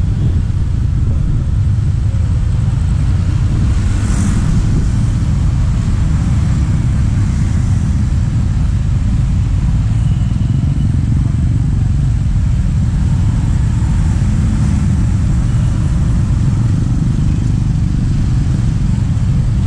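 Steady low rumble of motorcycle and car traffic, heard from a moving motorbike, with wind on the microphone.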